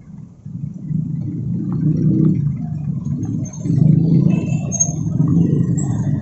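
Busy street traffic: cars and motorcycles running past, swelling about half a second in and loudest around four seconds in.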